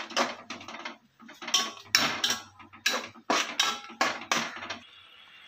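Perforated metal spoon scraping and knocking against the sides and bottom of a metal pot while stirring grated coconut in jaggery syrup: about ten quick, irregular strokes. They stop near the end, leaving a faint steady hiss.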